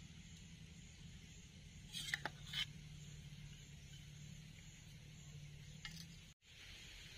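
Steel ladle clinking a few times against a steel plate while curry is served onto rice, the clinks bunched together about two seconds in, with a fainter one later, over a faint steady hum.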